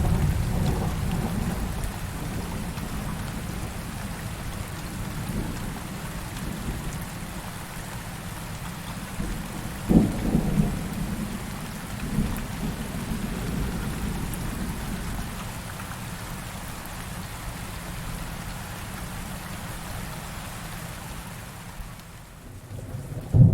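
Steady heavy rain with thunder: a low rumble fades over the first couple of seconds, a sharp thunderclap with rumbling comes about ten seconds in and a smaller one shortly after, and a loud rumble of thunder builds near the end.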